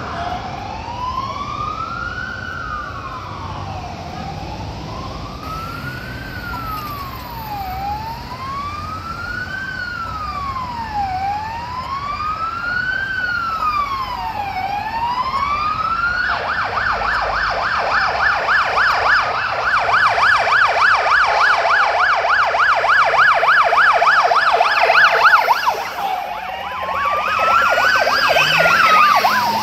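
WA Police cars' electronic sirens: a wail rising and falling about every three and a half seconds, switching about halfway through to a fast yelp that runs for roughly ten seconds, then a wail again near the end from a second car, an unmarked Skoda Superb wagon. The first siren belongs to a Subaru Liberty police sedan running on wail and yelp.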